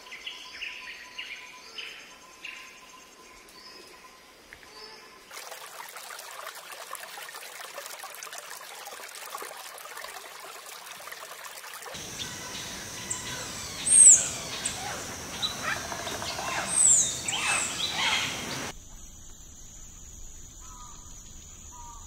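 Wild birds calling and chirping, broken by a stretch of steady rushing noise. The loudest calls are two sharp, high slurred whistles in the later part, among other calls.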